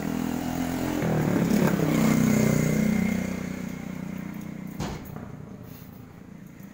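A motor vehicle's engine passing by, growing louder for about two seconds with its pitch dropping as it goes past, then fading away. A single sharp knock near the end.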